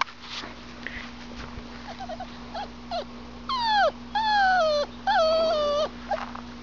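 Black Labrador retriever puppy whining: a few short soft squeaks, then three long whines in a row, each sliding down in pitch.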